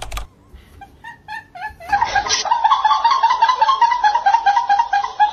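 High-pitched giggling and laughter in quick repeated bursts, growing much louder about two seconds in and cutting off suddenly at the end.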